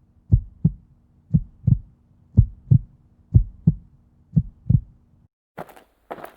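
Heartbeat sound effect in the soundtrack: paired lub-dub thumps about once a second over a faint low hum. It stops a little after five seconds, and scattered soft knocks and rustles follow near the end.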